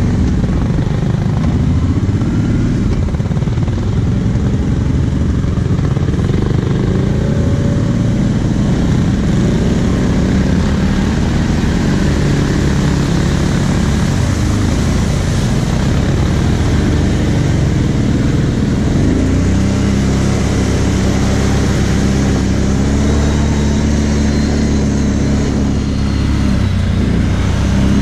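Kawasaki KVF 750 Brute Force ATV's V-twin engine running close up while the quad rides through muddy ruts on a dirt track. The engine note rises and falls with the throttle, then holds steadier for the last several seconds.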